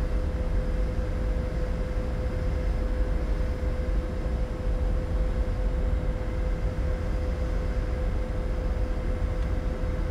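Twin turbofan engines of a jet airliner settling at ground idle just after an engine start, heard from inside the cockpit: a steady, even rumble with a constant whine held at one pitch.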